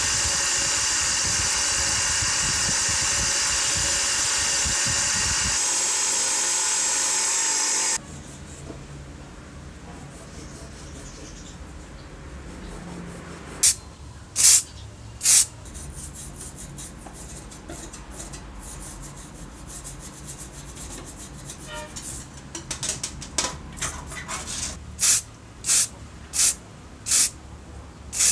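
A bench-mounted abrasive wheel runs with a small metal plate held against it, giving a loud, steady, high-pitched grinding hiss that stops abruptly about eight seconds in. Later come short hissing bursts from an aerosol spray can, three about halfway and a quick run of about six near the end.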